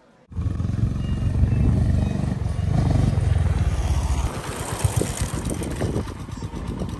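Motorcycle engine running as it rides by with two people on it, loud for the first few seconds, then dropping to a lower, uneven running sound as the bike slows and stops.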